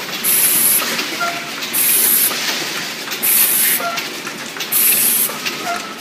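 Automatic vial cartoning machine running, with a sharp hiss of released compressed air from its pneumatics about every second and a half, four times, over a steady mechanical clatter.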